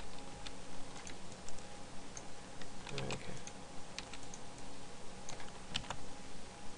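Computer keyboard keystrokes and mouse clicks, scattered and irregular, over a faint steady hum.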